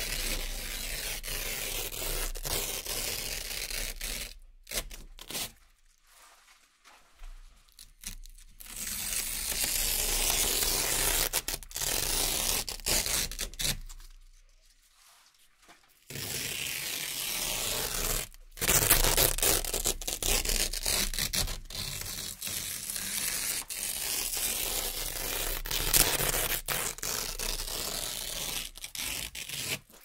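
Velcro (hook-and-loop) strips being slowly peeled apart in long, continuous crackling rips. There are three stretches of ripping, split by a pause of a few seconds early on and a shorter pause about halfway through.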